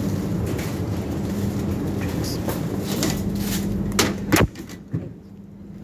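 Steady low hum and rumble of a supermarket aisle, with two sharp knocks about four seconds in, after which the rumble drops away and the hum carries on more quietly.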